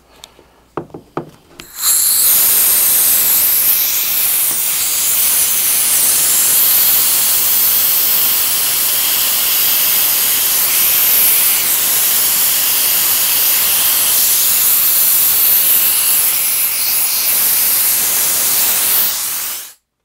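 A few clicks as hose fittings are handled, then a loud, steady hiss of pressurised gas rushing through a Testo digital refrigerant manifold and its hoses as they are purged. The hiss cuts off suddenly near the end.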